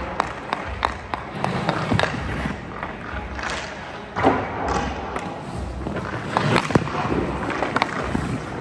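Ice-hockey stick blade clicking against pucks on the ice and shots thudding into a goaltender's pads, with skate blades scraping the ice as the goalie moves.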